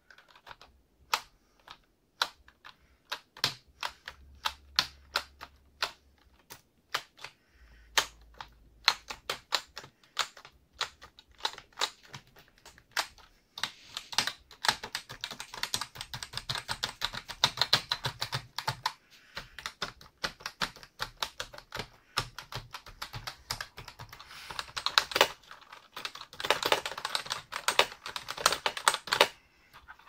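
Keys of a new MSI computer keyboard being pressed: separate single key clicks at first, then rapid, continuous typing from about halfway through that stops shortly before the end.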